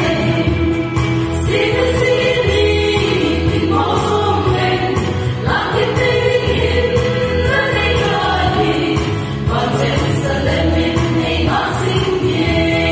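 Three women singing a Christian song together in harmony through microphones, with long held notes, over instrumental accompaniment with a steady low bass.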